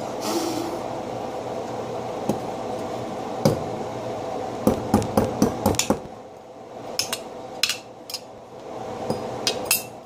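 A kitchen utensil striking a block of frozen ice, giving sharp knocks and clinks: a single hit, then a quick run of about seven strikes around five seconds in, then scattered taps.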